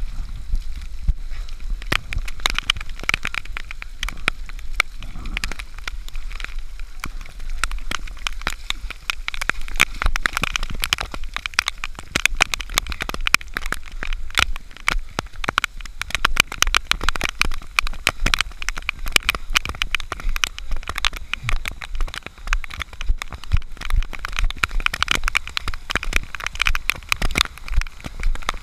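Dense, irregular crackling and rustling picked up through a mud-spattered action-camera housing as its wearer moves along a muddy course, over a low rumble.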